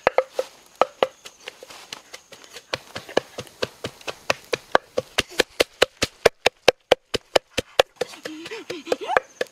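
Food being chopped with a hand tool: a run of sharp knocks, irregular at first, then an even quick rhythm of about four to five strokes a second, stopping about a second and a half before the end.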